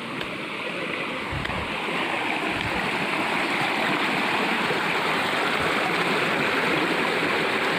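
Waterfall rushing, a steady dense hiss of falling and running water that grows louder over the first couple of seconds and then holds.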